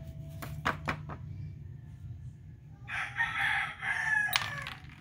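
A rooster crowing once, starting about three seconds in and lasting under two seconds, ending on a falling note. Before it, a few sharp clicks.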